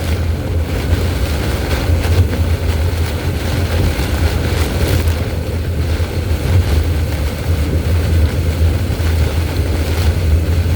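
Steady low rumble of road and wind noise inside a moving car's cabin, with wind and heavy rain buffeting the car.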